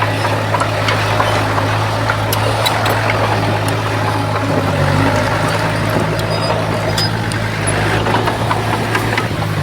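Komatsu bulldozer's diesel engine running steadily under work, with scattered sharp clicks and clanks over it; the engine note shifts slightly about five seconds in.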